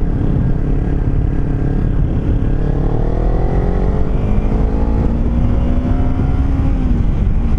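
Kawasaki Ninja 300's parallel-twin engine pulling under acceleration. Its pitch rises steadily for several seconds, then drops near the end, over wind rush on the microphone.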